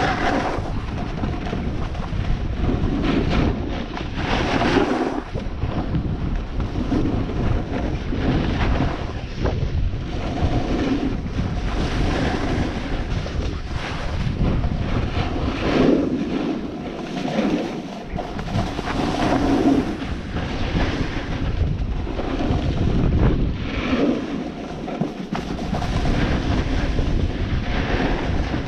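Wind buffeting the camera microphone during a ski run, a steady low rumble, over skis hissing and scraping across packed snow, swelling and fading every couple of seconds.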